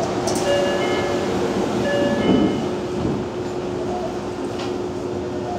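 Tokyo Metro 03 series car standing at a station as its doors close, over a steady hum from the stopped train. A chime of several tones sounds twice in the first half, and a louder rush comes about two and a half seconds in as the doors shut.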